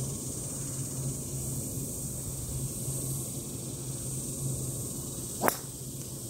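A golf driver striking a teed ball: a single sharp crack about five and a half seconds in, over a steady background hiss and low hum.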